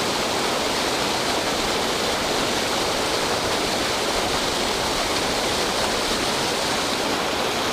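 Creek water pouring over a small spillway waterfall: a steady, even rush of falling water.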